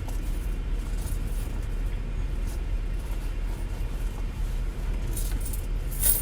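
A car's engine idling, a steady low hum heard from inside the cabin, with a few light clicks or rattles near the end.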